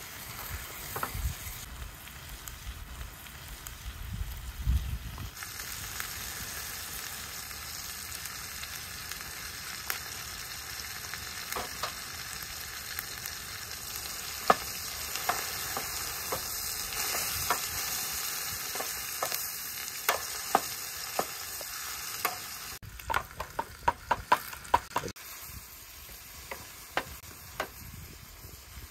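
Vegetables sizzling in oil in a metal frying pan on a portable gas stove, stirred with a wooden spatula that clicks and scrapes against the pan. The steady sizzle drops off near the end, where a quick run of spatula taps comes.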